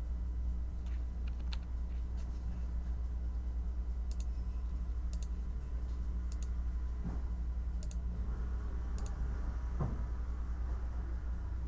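Slow, sparse typing on a computer keyboard: single keystroke clicks, several of them doubled, about one a second. Beneath them runs a steady low hum of background noise.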